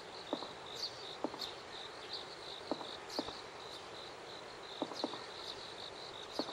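Insects chirping in an even, high-pitched pulse of about three chirps a second, with a few brief sharp ticks and short chirps scattered through.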